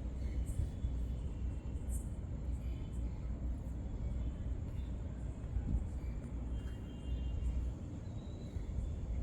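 Wind buffeting a phone's microphone: a low rumbling noise that keeps rising and falling.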